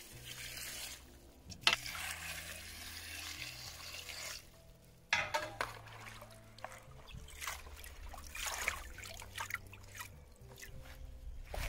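Water poured from a plastic dipper into a plastic basin of leafy greens for about four seconds. Then, after a sharp splash about five seconds in, hands swish and splash the leaves in the water and lift them out dripping.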